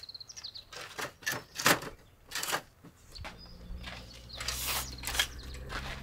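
Irregular knocks and clatter of things being handled, with a brief high chirp at the start. A low steady hum comes in about halfway through.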